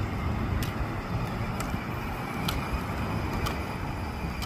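Steady low rumble of motor-vehicle running and road noise, with a light click about once a second.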